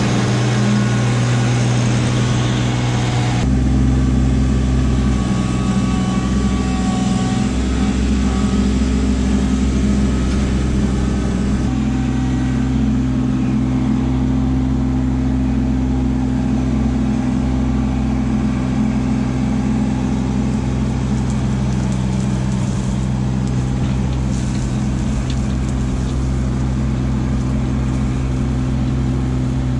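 Kubota LX2610 compact tractor's three-cylinder diesel engine running steadily as it works. Near the end, a loader bucket of crusher-run gravel tips out and spills onto the ground with a loose rattle.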